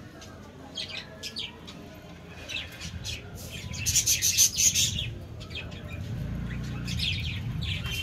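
Budgerigars chirping in short, sharp, high calls: a few about a second in, a louder, denser run of chirps around the middle, and more near the end.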